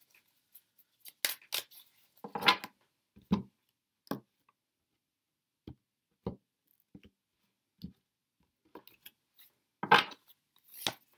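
Tarot cards being handled over a wooden table: the deck shuffled and cards laid down, making irregular short snaps and taps, the loudest about two and a half seconds in and again near the end.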